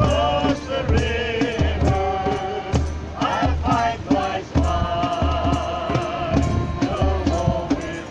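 Worship song: voices singing a melody over amplified accompaniment with a steady beat and bass.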